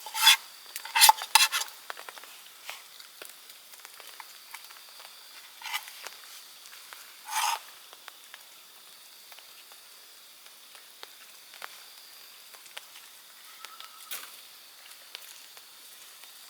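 Wood fire crackling and popping, with a cluster of loud pops in the first two seconds and more around six and seven seconds in.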